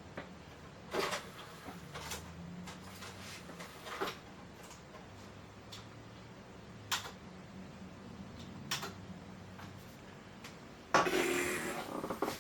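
Scattered short clicks and taps over a faint steady hum, then a louder rustling, handling noise about eleven seconds in.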